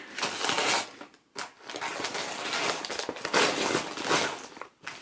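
Gift wrapping rustling and crinkling as a present is unwrapped by hand, in several bursts with brief pauses.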